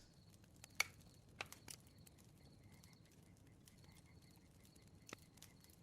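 Faint crackling of a bonfire: a few sparse, sharp pops and snaps, the loudest just under a second in, over near silence.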